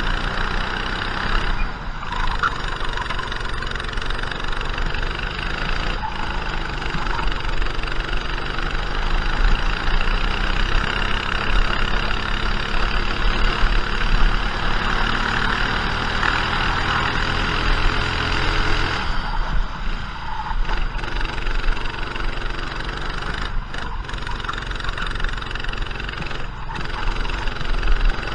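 Racing kart's engine heard onboard at full throttle, its note climbing steadily along a straight, then dropping abruptly about two-thirds of the way through. The engine note also dips briefly near the start and twice near the end.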